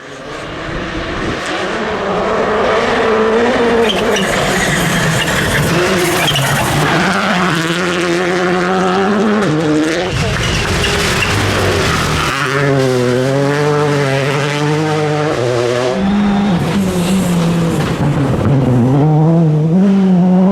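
Rally car engine driven flat out, its note climbing and dropping again and again through gear changes, with tyre and gravel noise underneath.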